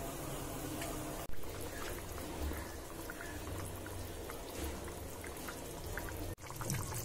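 Cauliflower and potato curry simmering in a pan on a gas stove, bubbling steadily with small pops. The sound breaks off for an instant about a second in and again near the end.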